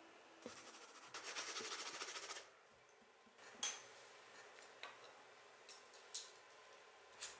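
Small objects on a desk being handled by hand. First a brief rattling rustle, then one sharp clink with a slight ring about halfway through, then a few light clicks and taps.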